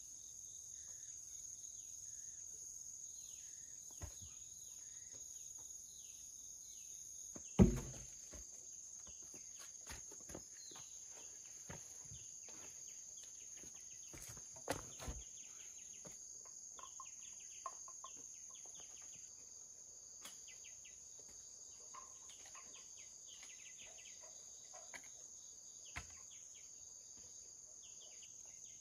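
A steady high insect drone, with scattered bird chirps. Over it come a few knocks and thuds of wooden poles being handled and set in the earth, the loudest about eight seconds in.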